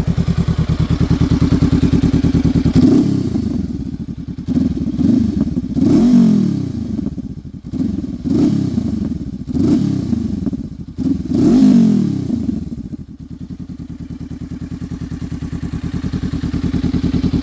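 Honda CBR500R parallel-twin engine running through an aftermarket KO Lightning slip-on exhaust. It idles steadily, is revved with about five quick throttle blips from about three seconds in, then settles back to idle near the end.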